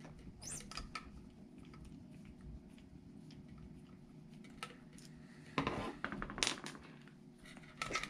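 A small screwdriver turning the servo horn screw out of an ECX Temper Gen 2's stock steering servo, making light metallic clicks and scrapes. The clicks are loudest and come in a quick run between about five and a half and six and a half seconds in.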